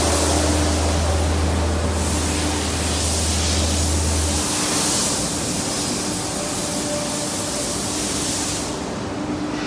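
Weld pipe roll forming line running: a steady hiss over machine noise, with a low hum that stops about four seconds in and the hiss falling away near the end.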